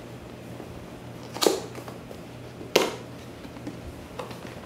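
Small cardboard box being handled and opened by hand: two sharp cardboard clicks about a second and a half in and again a little over a second later as the tuck flap is worked loose, then a softer one near the end, over a faint steady low hum.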